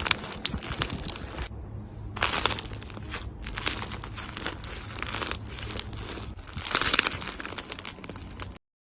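Crinkling, crackling sound made of many small clicks, swelling in several louder surges before cutting off abruptly near the end.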